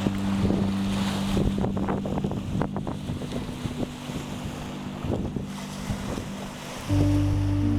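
Sea waves lapping and splashing at the shore, with wind buffeting the microphone. A steady low hum is heard at the start, fades, and comes back louder about seven seconds in.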